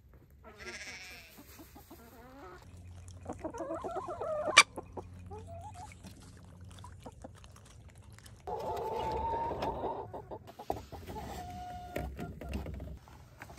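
Backyard hens clucking and calling, with a sharp knock about four and a half seconds in and a louder drawn-out call from about eight and a half to ten seconds in.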